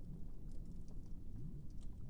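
Wood fire crackling: sparse sharp snaps and pops over a steady, low, muffled underwater rumble with faint bubbling.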